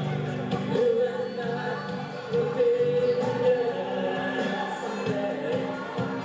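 A live band playing, with several voices singing together as a group.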